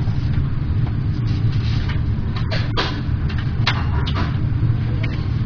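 Steady low rumble, with several short, sharp cutting or scraping sounds at uneven intervals as a knife with a chipped edge is tried for sharpness.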